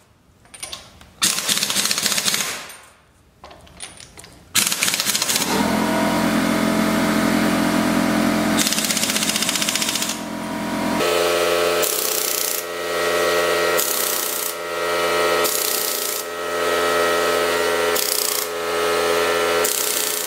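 Pneumatic impact wrench hammering lug nuts down on a truck wheel. It comes in a few short bursts at first, then runs almost without a break from about four and a half seconds in, with a pulsing rise and fall about once a second in the second half.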